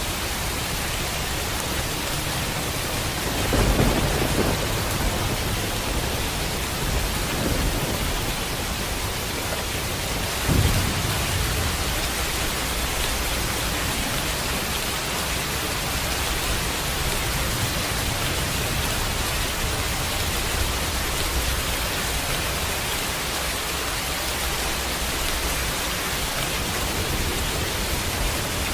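Steady rain falling, with thunder: a rumble about four seconds in, a fainter one around seven seconds, and a sharper clap about ten and a half seconds in.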